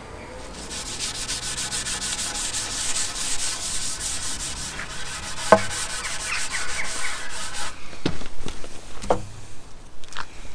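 Green abrasive pad rubbing hard wax oil into a stained pine plank in quick back-and-forth strokes. The rubbing stops about three-quarters of the way through, followed by a few light knocks.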